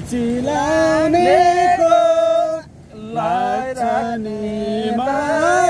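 A voice singing a Nepali folk song in long, held notes, with a short break about halfway through.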